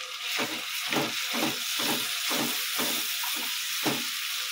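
Potatoes sizzling in hot oil in a kadai while a silicone spatula stirs in onion paste and turmeric, its strokes against the pan coming about every half second and stopping near the end.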